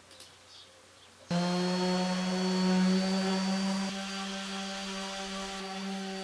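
Corded electric orbital sander running on an OSB panel, a steady motor hum with a strong low tone and overtones that comes in suddenly about a second in, easing a little in level and wavering slightly in pitch as it works the board.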